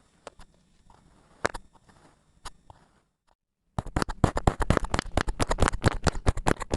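Kinetic sand being cut close to the microphone: a few soft scattered crackles, then, after a brief gap about three seconds in, a dense run of crisp, rapid crunching crackles.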